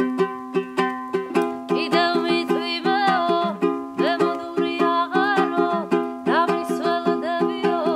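Steady strummed chords on a small plucked string instrument. A woman's voice comes in about a second and a half in, singing a song over it.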